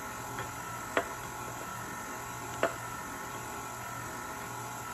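KitchenAid stand mixer running with a steady hum while shredded carrots are tipped from a glass measuring cup into its steel bowl; two sharp taps, about a second and a half apart, as the cup knocks against the bowl.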